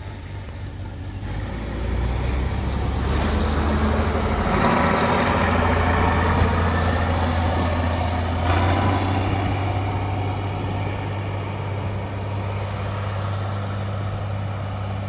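Bizon Z056 combine harvester's diesel engine running as the combine drives past on the road, growing louder as it nears and then fading as it moves away.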